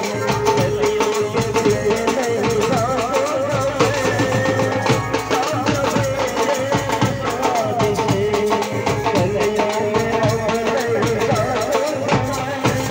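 Live band music: a man sings an ornamented, wavering melody into a microphone over a PA, while a barrel drum beats a steady rhythm.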